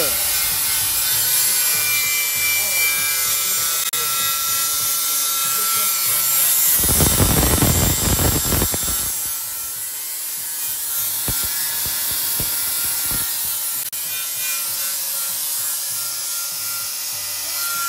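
DeWalt angle grinder with a flap disc grinding rusty steel: a steady motor whine over the hiss of the disc on the metal. About seven seconds in, a louder low rumble joins for a couple of seconds.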